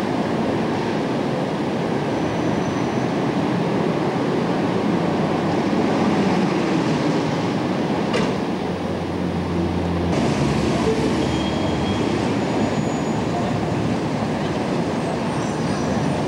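Steady city street traffic noise: a continuous roar of engines and tyres, with a deeper engine hum briefly standing out a little after the middle and a single click about eight seconds in.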